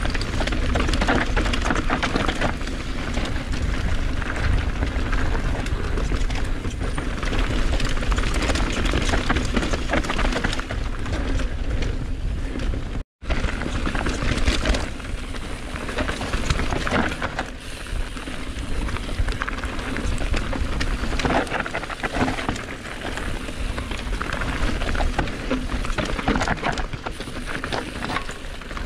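Mountain bike ridden down a rough enduro trail, heard from a GoPro mounted on the rider: a steady rush of wind and tyre noise with constant rattling and clattering from the bike. The sound cuts out for an instant about halfway through.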